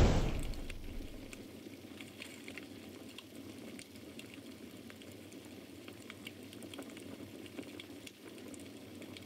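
A whoosh fading out in the first second, then a steady crackling noise with scattered small ticks.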